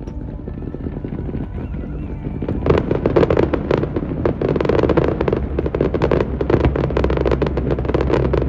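Fireworks going off: a quieter start, then from about two and a half seconds in a dense, rapid crackling of many bursts that keeps going.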